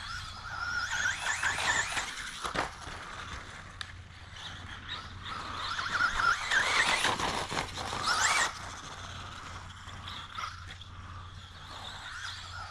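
Traxxas Bandito RC buggy's brushless electric motor whining at high pitch, rising and falling as it speeds up and slows. It is loudest with a steep rising sweep about eight seconds in that cuts off suddenly.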